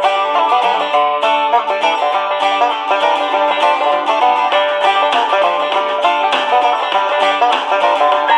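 Banjo-led bluegrass-style instrumental music playing through the small speaker of an XHDATA D-219 portable radio. The sound is bright, with no deep bass.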